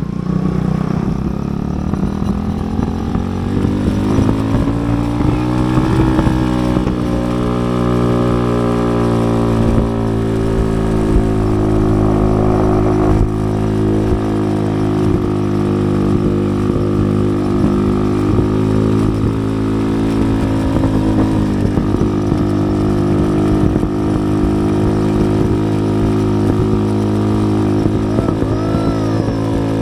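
Motorcycle engine pulling away, its pitch rising over the first six seconds, then running at a fairly steady cruise with small rises and falls.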